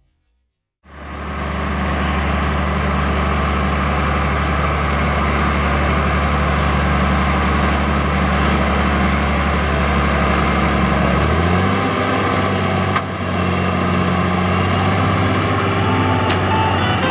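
Rába 320 tractor's John Deere PowerTech diesel engine running steadily, then speeding up to a higher, steady pitch about eleven seconds in. There is a sharp click near the end.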